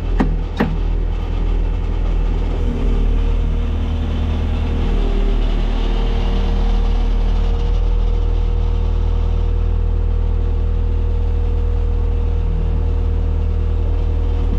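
Skid steer loader's diesel engine running steadily, heard from inside its cab, after two sharp knocks in the first second.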